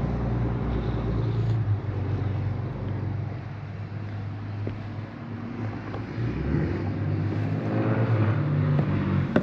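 An engine running steadily with a low hum, growing louder over the last few seconds.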